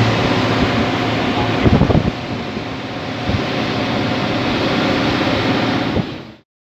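Steady rushing noise of a moving vehicle with wind on the microphone, with a few low thumps about two seconds in. It cuts off suddenly near the end.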